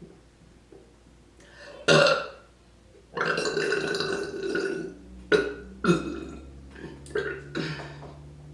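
A woman burping on command: one short loud burp about two seconds in, then a long drawn-out burp lasting nearly two seconds, followed by a few shorter burps.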